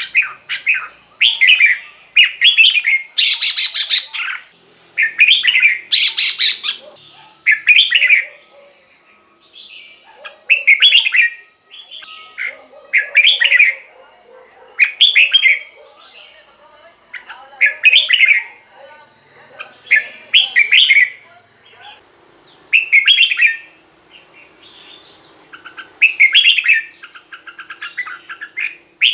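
Red-whiskered bulbul singing: short, bright warbled phrases repeated about every one to two seconds, with brief pauses between them.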